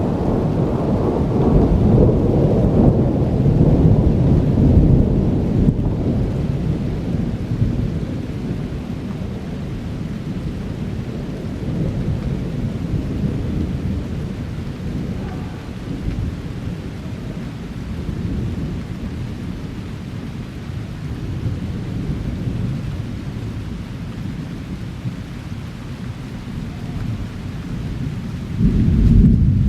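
Rolling thunder from a thunderstorm: a deep rumble, loudest in the first several seconds, that slowly fades to a lower grumble with smaller swells. A fresh, louder peal begins near the end.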